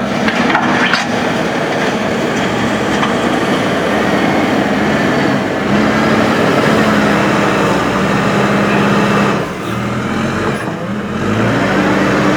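Diesel engine of a Hydrema 906D backhoe loader running hard while digging and moving dirt. Its revs step up about six seconds in, drop briefly near ten seconds and climb again, with a couple of knocks near the start.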